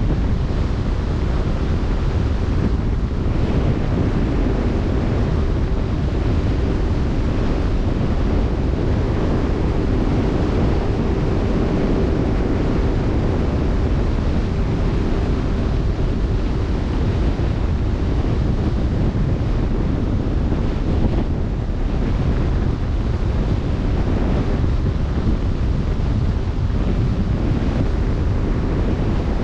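Steady wind buffeting the microphone over the rushing wash of open-sea waves, with a faint steady hum underneath.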